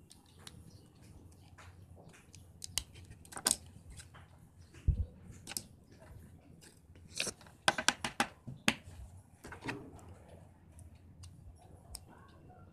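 Small plastic and metal parts of an iPod-style MP3 player clicking and snapping as the player is taken apart by hand, with a small metal tool tapping and scraping on the case and circuit board. The sharp clicks come scattered, busiest about seven to nine seconds in, with a dull knock about five seconds in.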